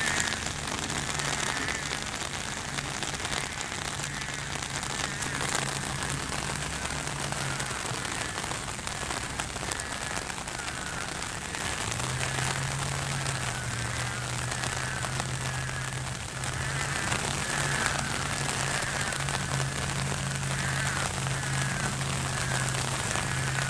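Steady rain falling on floodwater and wet ground, an even hiss that does not let up. A steady low hum runs underneath.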